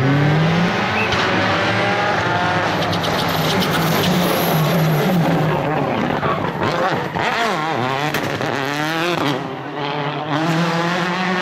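Rally car engine at full throttle, its pitch climbing and dropping through repeated gear changes. A patch of sharp crackles comes a few seconds in. The revs dip twice and then climb hard again.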